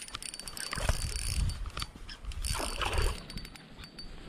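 Spinning fishing reel being cranked, giving irregular mechanical clicks over a low rumble.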